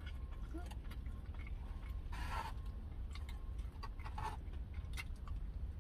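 Close eating sounds as a barbecue chicken wing is bitten and chewed: small mouth clicks and two short rustles, about two and four seconds in, over a steady low hum.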